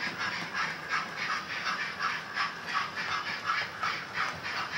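Hornby 00 scale model steam locomotive with a TTS sound decoder chuffing through its small onboard speaker: an even, rapid run of chuffs, about four a second.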